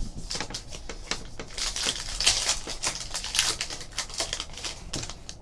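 Foil wrapper of a trading-card pack crinkling and crackling as it is torn open and pulled off the cards. A few light taps of cards being set down on a table come first.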